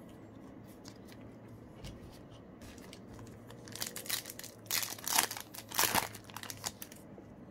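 Foil Yu-Gi-Oh! booster pack wrapper being torn open and crinkled by hand: a run of crackling rustles starting about halfway in, loudest near the end.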